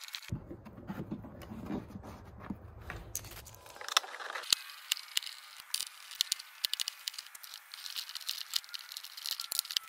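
Phillips-head screws being worked out of the rear bumper-to-fender mounting in a wheel well. A low hum runs for the first three or four seconds, then a long run of small sharp metallic clicks and rattles from the tool and screws.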